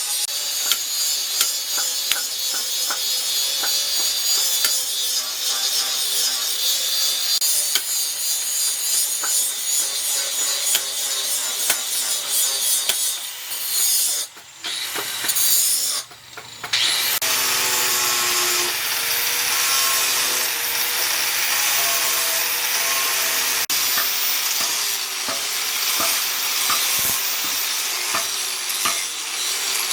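Wood being cut and abraded by tools: a loud, continuous scraping with rapid repeated strokes, which breaks off twice about halfway through. It then resumes as a motor-driven tool whose pitch wavers as it works the wood.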